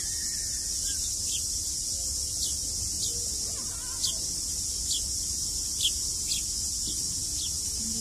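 A steady, high insect chorus throughout, with short, high, falling chirps repeating about once or twice a second.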